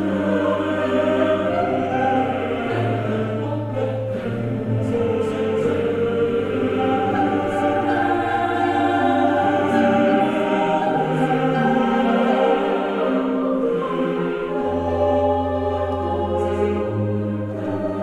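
Background music: choir-like voices singing long held chords over sustained bass notes that change every few seconds.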